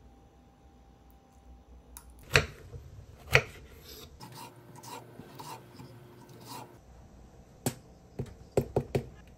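Kitchen knife cutting mini peppers on a wooden cutting board: two sharp knocks, a run of softer clicks, then a quick cluster of knocks near the end.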